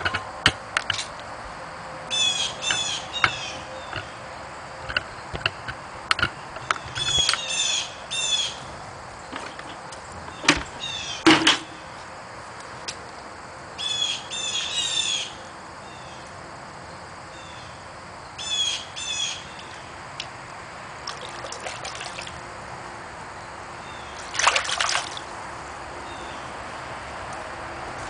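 A songbird repeating a short phrase of three or four quick, high, down-slurred notes, about every five seconds, over a faint steady trickle of water. A few sharp knocks or clicks come in between, the loudest two near the middle.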